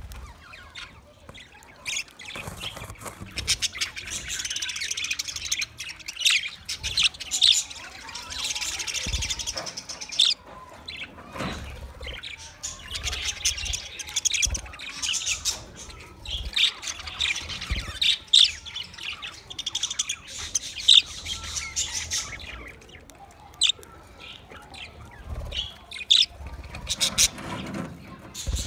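A flock of budgerigars chattering and chirping together, dense warbling broken by brief lulls every few seconds.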